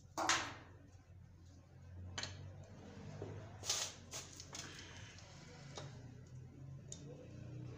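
Socket wrench working the bolts on an aluminium A245E automatic transmission housing: a few scattered metal clicks and clinks, the sharpest about a third of a second in and another burst of them near the middle. A low steady hum runs underneath.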